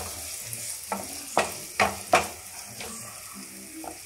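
Chopped onions and garlic sizzling in butter in a non-stick kadai. A wooden spatula scrapes and stirs through them in quick strokes, about five between one and three seconds in.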